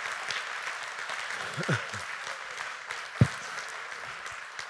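Church congregation applauding, a steady patter of many hands clapping that thins out near the end, with a single low thump about three seconds in.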